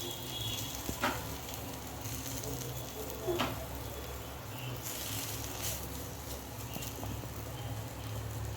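Chapati heating on a hot, lightly oiled pan, with a faint sizzle over a steady low hum. There are two brief knocks, about a second in and again a little past three seconds.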